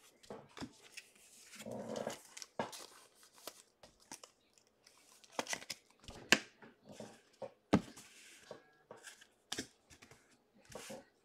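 Trading cards being handled: cards slid, flicked and set down on a tabletop stack, making scattered light clicks and taps with two sharper knocks in the second half, plus a brief low sound about two seconds in.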